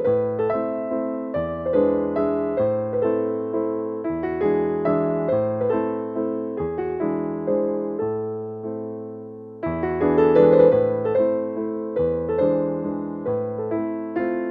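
Background piano music: a gentle melody of struck notes that ring and fade over a bass line, with a new phrase starting about ten seconds in.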